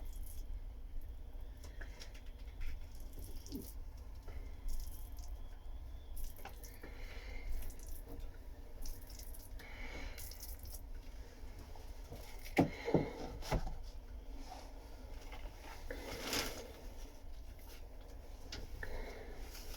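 Scattered light knocks and handling noises over a low steady hum, with a few louder knocks about two-thirds of the way through.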